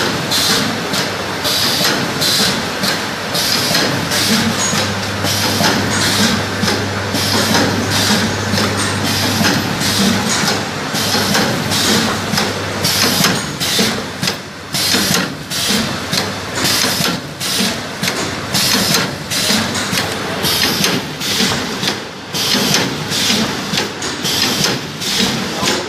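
Automatic woven sack fabric cutting machine running, a fast, regular mechanical clatter as it feeds and cuts the fabric, with a steady low hum for several seconds in the middle.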